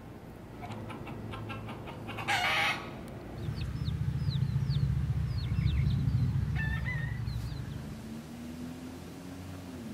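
Feral chickens calling: clucking, a short loud squawk about two and a half seconds in, and a run of high falling peeps. Under them a low rumble swells in the middle and fades near the end.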